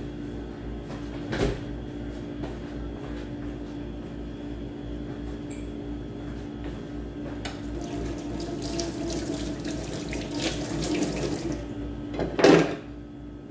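Water running from a kitchen tap into a sink, growing stronger in the later seconds, over a steady low hum. A single loud knock comes near the end.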